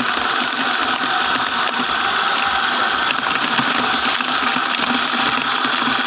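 Homemade electric feed chopper, a motor-driven blade inside a plastic bucket, running steadily while fresh water spinach is pushed in and cut up.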